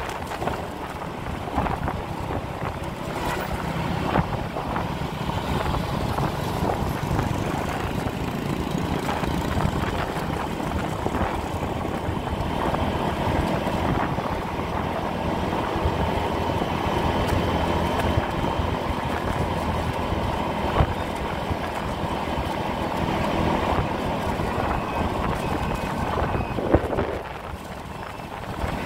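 Motorbike riding along a road: steady engine and road noise with wind buffeting the microphone, briefly quieter near the end.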